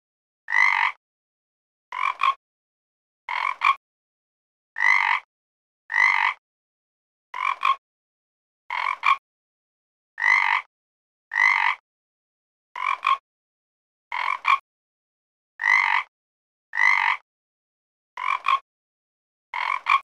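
Frog croaking: a steady series of short croaks, each about half a second long, repeating roughly every second and a half with silence between.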